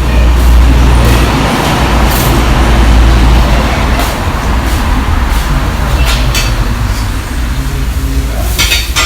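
Restaurant kitchen at work: a steady low rumble under a hiss of cooking. A metal spatula clatters and scrapes against a wok every couple of seconds, loudest near the end.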